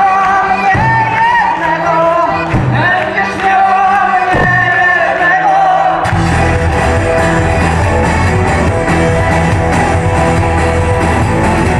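Live folk-rock band playing with singing. About six seconds in, the full band comes in with drums and bass, and the sound turns suddenly fuller and denser.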